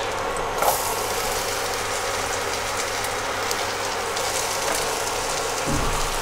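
Potato sticks sizzling steadily in melted butter in a nonstick pan as they are dropped in, with a light knock about half a second in.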